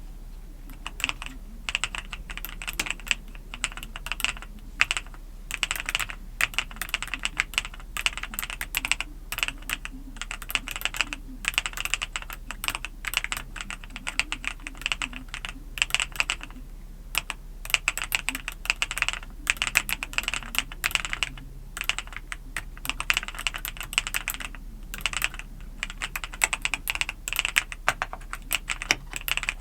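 Mechanical keyboard with LEOBOG Gray Wood V4 switches being typed on in quick, continuous runs of keystrokes, with a few short pauses.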